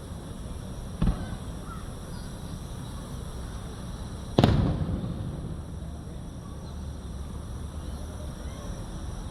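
Fireworks shells bursting: a lighter bang about a second in, then a much louder boom about four seconds in that trails off in a rumble.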